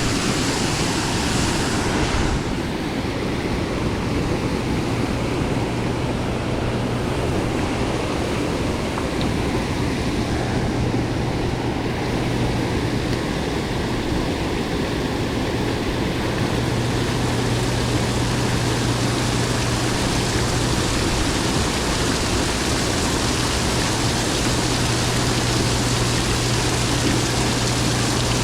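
Steady rush of high water below a dam, an even noise with a low hum running under it.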